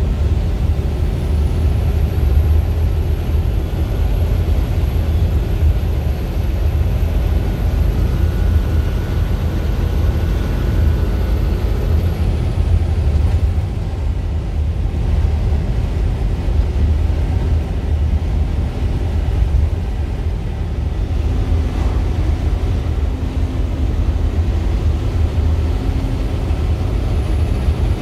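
Steady low rumble of a road vehicle driving along, heard from inside the cab.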